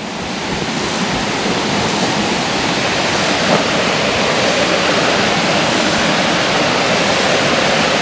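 Small waterfall splashing steadily into a rock-lined pool. The rush of water swells a little in the first couple of seconds, then holds steady.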